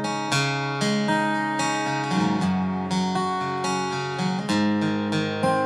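Acoustic guitar strummed, playing the closing instrumental chords of a song with no singing; the chord changes about two seconds in and again past four seconds.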